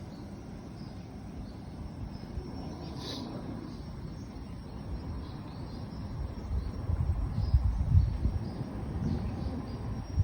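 Outdoor ambience: faint, short high chirps recur over a steady hiss, with a brief louder chirp about three seconds in. A low rumble on the microphone grows louder in the second half.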